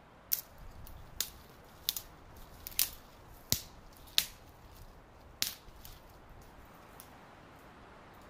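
Dry dead branches and twigs snapping off by hand: about seven sharp cracks spread over the first five seconds, with a light rustle of brittle twigs between them.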